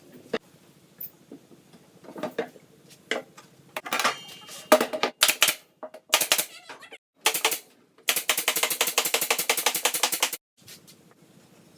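Clicks and knocks of objects being handled, then a fast, even rattle of clicks lasting about two seconds.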